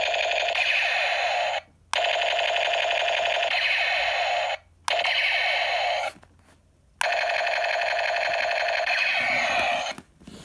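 Battery-powered toy mini Uzi's electronic machine-gun sound effect, played through its small built-in speaker: rapid-fire electronic rattling in four runs of roughly one to three seconds each, separated by brief silences as the trigger is pulled again.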